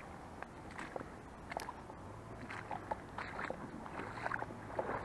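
Footsteps wading through shallow water and mud: irregular small splashes and squelches, coming more often towards the end.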